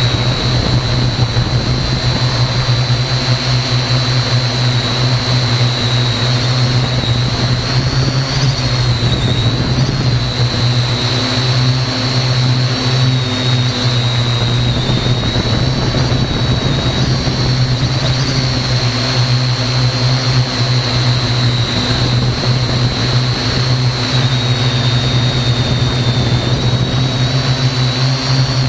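Parrot AR.Drone quadcopter in flight, heard from on board: its four motors and propellers running with a steady loud buzz and a high whine that rises and falls slightly as the throttle changes.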